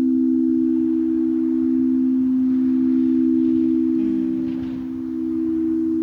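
Sound bowl, played as a singing bowl, ringing with a steady sustained hum of two close low tones. About four seconds in there is a faint touch or scrape of the striker, and the level dips briefly.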